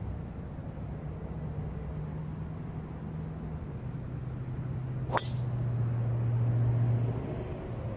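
Golf club striking a ball in a full swing: one sharp crack about five seconds in. A steady low hum runs underneath and swells for a few seconds around the strike.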